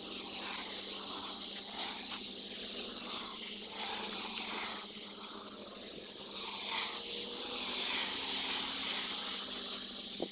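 Aerosol spray can hissing steadily as silver paint is sprayed onto a masked alloy rim, stopping at the end.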